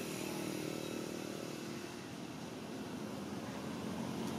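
An engine running steadily in the background, a low hum that weakens a little about halfway through.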